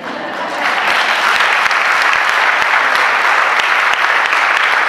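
A large audience applauding: the clapping swells in the first half-second, then holds at a steady, loud level.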